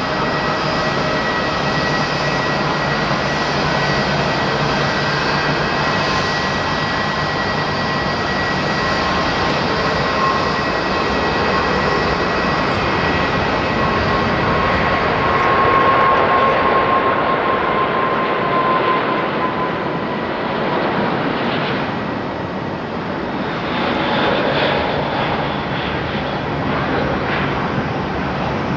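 Airbus A380's four jet engines at takeoff thrust during the takeoff roll, liftoff and climb-out: a loud, steady jet noise with a high whine. It is loudest about halfway through, as the aircraft lifts off and passes, and the whine then drops slightly in pitch as it climbs away.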